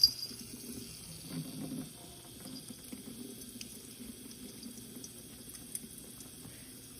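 Water running steadily from a tap into a sink, a thin even hiss, with a sharp click right at the start.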